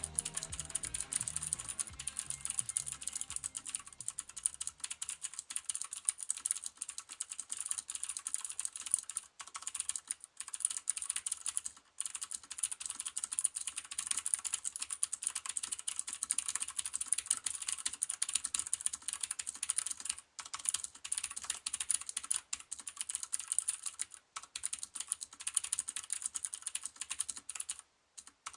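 Continuous fast typing on a mechanical keyboard with clicky Cherry MX Green switches under DSA-profile keycaps: a dense stream of sharp key clicks and clacks with a few brief pauses.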